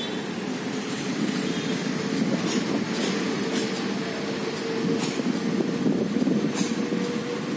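Steady low mechanical rumble with a constant hum, broken by a few faint sharp clicks.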